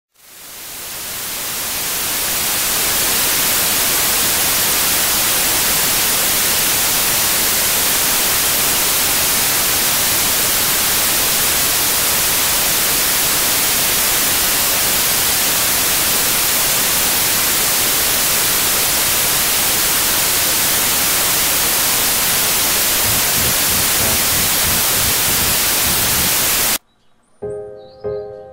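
Loud static hiss, like a detuned television's snow, fading in over the first few seconds and then holding steady. Near the end it cuts off suddenly, and soft music with evenly repeated notes begins.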